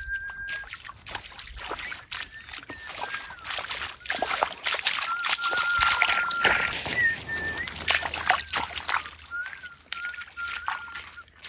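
Splashing and sloshing in shallow muddy water, in many short irregular bursts, with a thin whistled tone holding and wavering in pitch over it.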